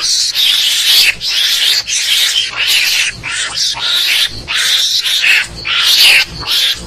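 Mongoose (garangan) calling: a rapid series of harsh, raspy chattering cries, about two a second, the kind of call played as a hunting lure to draw mongooses in.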